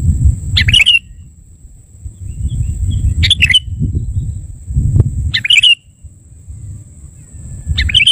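Sooty-headed bulbul giving four short, chirpy call phrases about two to three seconds apart, over a loud low rumble.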